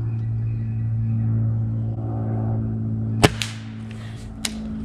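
Gamo Swarm Whisper .22 pellet rifle firing once through its built-in suppressor: a single sharp crack about three seconds in, followed a second later by a fainter click, over a steady low hum.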